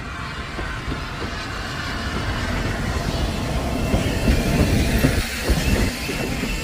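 Steam saddle-tank locomotive passing close while hauling a train of coaches. The sound grows louder as it draws level, and from about four seconds in the coaches' wheels clatter over the rail joints.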